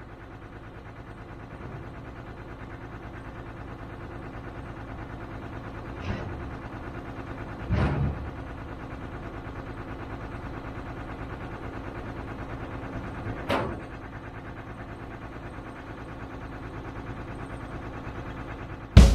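Tesla Model X driving up the tilted steel ramp onto a tilt-and-slide recovery truck bed: three clunks as its wheels go over the ramp and bed, the loudest about eight seconds in, over a steady low engine hum from the idling truck.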